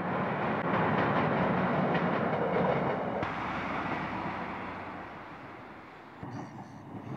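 Train running along the track, loud for about three seconds and then fading away.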